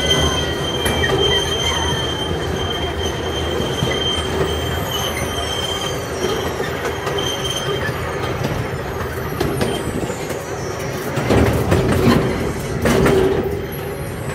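Miniature park train riding its track: a steady rumble of wheels on rail with a thin, high, steady wheel squeal, and a couple of louder rattling surges near the end.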